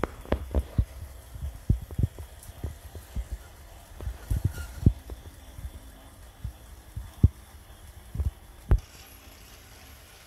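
Model train running on the layout's track: irregular short low thumps and clicks, the wheels knocking over rail joints, over a faint steady hum.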